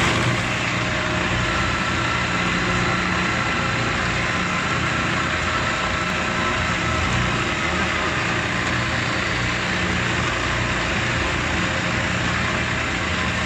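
Meat bowl cutter running steadily, its motor and high-speed chopping blades whirring as they chop meat into filling in the stainless-steel bowl.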